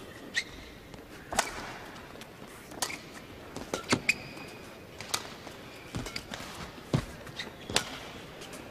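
Badminton rally: rackets striking the shuttlecock about eight times, roughly once a second, with short squeaks of court shoes between the hits, over a low murmur of the arena crowd.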